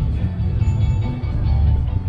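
Background music with guitar, over heavy low wind rumble on the microphone.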